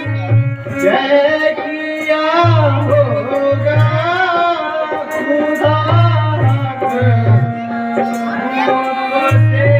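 A slow song: a solo voice sings long, wavering, ornamented lines over held accompanying notes and recurring tabla strokes.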